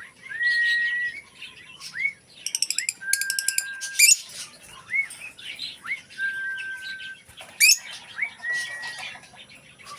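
Pet bird whistling and chirping: short rising chirps mixed with a few held whistles, and a quick run of rapid clicks about two and a half seconds in.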